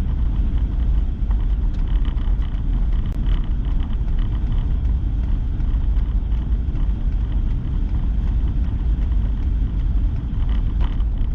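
Steady low rumble of a pickup truck driving in four-wheel drive, engine and road noise heard from inside the cab.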